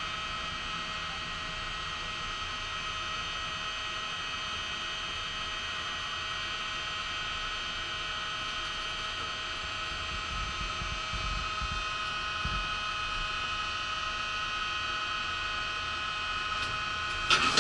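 Steady machinery drone with several fixed high whining tones, with a few low thuds partway through and a sharp click near the end.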